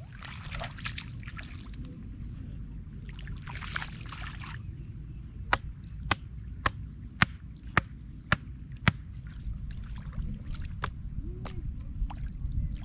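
Muddy floodwater splashing and sloshing in two bursts as a bamboo-slat screen trap is swept through it, then a run of sharp clicks about two a second, over a steady low rumble.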